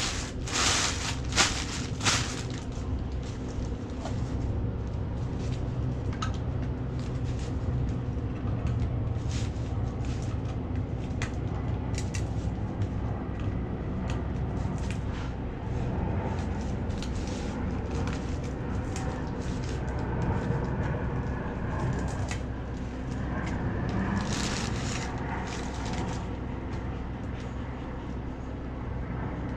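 A plastic bag crinkles as it is laid down. Then comes a run of scattered clicks and scrapes as a flathead screwdriver pries open the lid of an old tin of paint, over a steady low hum.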